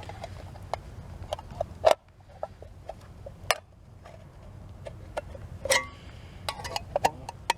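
Small knife blade cutting down through the thin metal wall of a tin can: irregular sharp metallic clicks and ticks, with a few brief scrapes.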